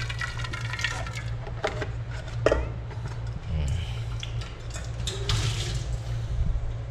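Water running from a water urn's tap into a steel pot, its pitch shifting as the pot fills, then a few clanks of the pot. About five seconds in, water splashes as it is poured out of the pot into a stainless-steel sink. A steady low hum runs underneath.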